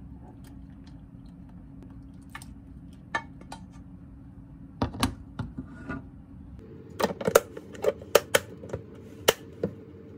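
Wooden spoon knocking and scraping against a nonstick saucepan, a scatter of sharp clacks that come thickest in the last three seconds, over a steady low hum.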